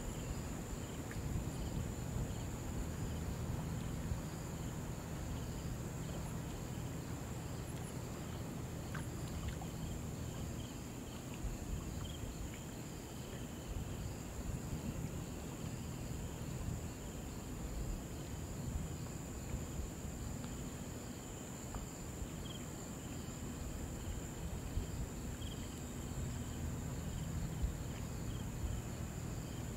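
Shallow river water flowing with a steady low rumble, under a constant high-pitched insect buzz and faint, regularly repeating chirps.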